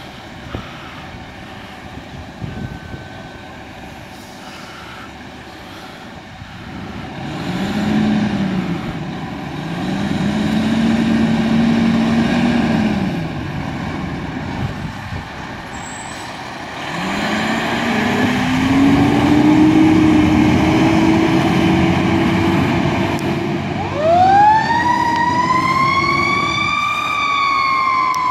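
Fire engine's low siren winding up and dying away twice, then winding up slowly and holding, over the rumble of the truck's engine. About four seconds before the end a higher siren wail starts, sweeping up and down.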